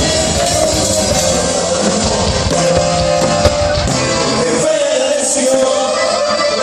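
Rock music with a singing voice over guitar and band accompaniment.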